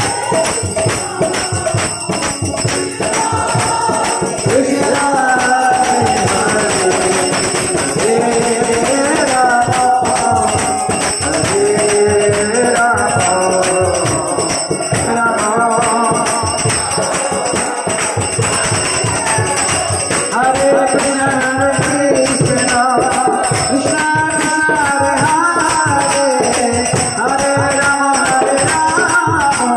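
Devotional music: a sung melody over steady jingling percussion.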